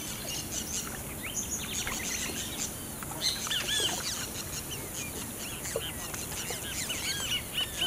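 Many birds chirping, a steady scatter of short, quick arching calls overlapping one another, over a faint even hiss.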